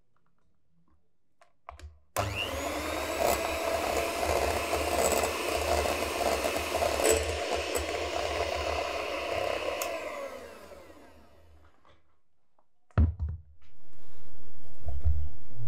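Electric hand mixer with twin wire beaters whipping heavy cream in a glass bowl: the motor starts about two seconds in, runs steadily, then winds down and stops. A knock follows as the mixer is set down, and a steady low hum comes in near the end.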